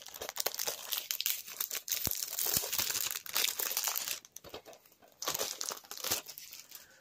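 Thin plastic wrapping crinkling and tearing as it is handled. There is a dense stretch of about four seconds, a short lull, then a second burst about five seconds in.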